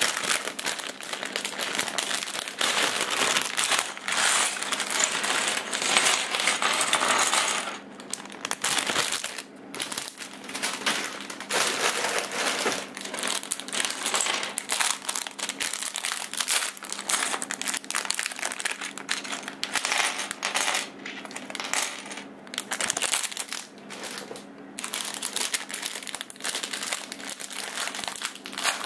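Plastic LEGO parts bag crinkling as it is tipped out, with loose LEGO bricks clattering and clicking onto a table and against each other. The crinkling is thickest in the first several seconds, then the bricks go on clicking as they are spread out by hand.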